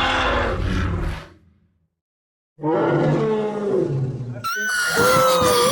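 Dinosaur roar sound effects: a deep, rough roar that dies away about a second in, a short silence, then a second roar. Near the end a different sound with high gliding tones cuts in abruptly.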